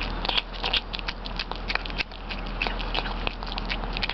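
A kitten eating moist cat food off concrete: quick, irregular wet chewing and smacking clicks, several a second.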